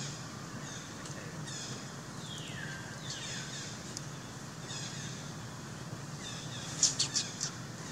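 Birds calling in the background: repeated series of high, descending chirps over a steady low hum, with a quick run of four or five sharp, louder notes near the end.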